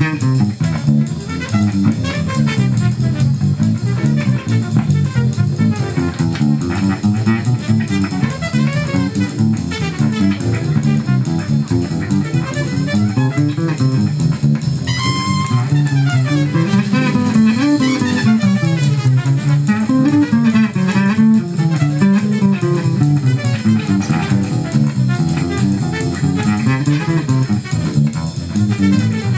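Four-string electric bass guitar plucked with the fingers, playing a busy, fast-moving jazz line in the low register.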